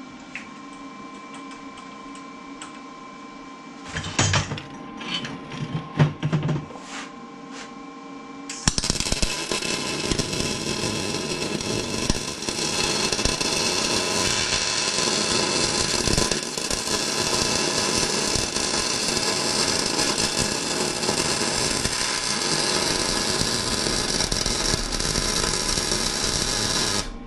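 A few knocks and clatter, then from about 9 s in a Lincoln Power MIG 210 MP welder's arc crackles continuously for about 18 s and cuts off abruptly near the end. It is running hot while burning into an old weld that the welder finds full of contamination ("that is not liking it").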